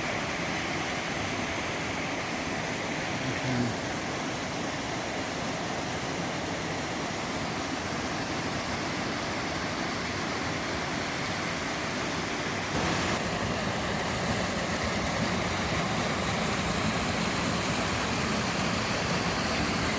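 Steady rush of falling water from the White Opava mountain stream's cascades, growing a little louder about two-thirds of the way through.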